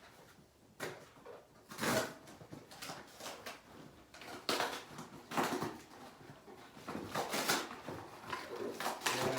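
Irregular rustling and handling noises of packaging and parts being pulled out of a box, in a run of uneven scrapes and crinkles starting about a second in.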